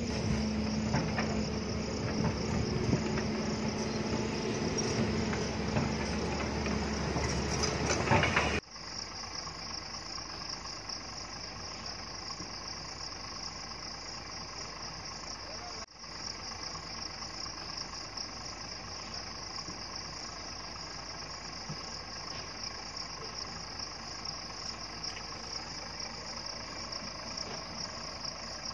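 JCB tracked excavator's diesel engine working loudly for the first eight or so seconds, then cutting off abruptly. After that, a steady high insect chorus over a faint engine idle.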